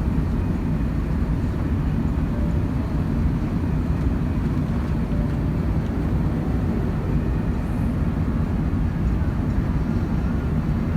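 Steady low rumble of an Emirates Airbus A380-861 airliner, its Engine Alliance GP7200 engines and airflow running at an even level throughout.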